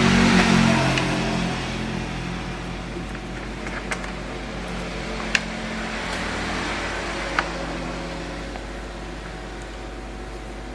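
Steady hum and hiss, louder at first and easing off over the first couple of seconds, with a few short sharp clicks a second or two apart.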